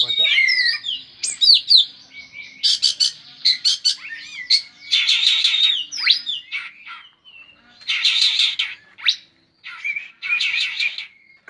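Oriental magpie-robin (kacer) singing a varied, loud song: quick whistled notes and glides broken by harsh, buzzy chattering phrases, the densest about 3, 5, 8 and 10 seconds in.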